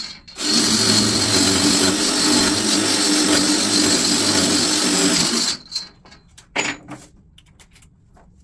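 Cordless drill running steadily under load against a steel strap on a concrete block for about five seconds, then stopping. A few short clicks and knocks follow.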